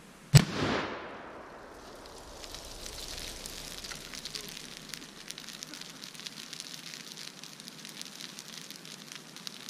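One sharp bang as a binary exploding target (a tannerite-type mix) is hit by a .303 rifle round and goes off, then the steady crackle and hiss of the brush fire it sets alight.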